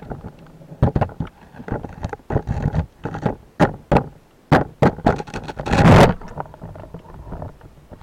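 Underwater knocks and clicks of a speargun and its mounted camera housing being handled, at irregular intervals, with a louder rush of water about six seconds in.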